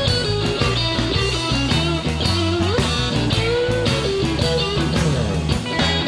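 Instrumental blues-rock music: an electric guitar lead with bent notes over bass and a steady drum beat.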